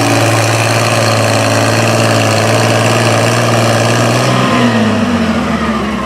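Farm pulling tractor's engine running at a steady, high speed, then its revs drop away about four and a half seconds in.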